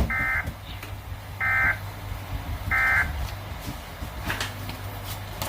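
Three short bursts of screeching SAME digital data tones from a weather radio broadcast, about a second and a half apart, over a steady low hum. Their shortness, right after the bulletin ends, fits the end-of-message code that closes an alert.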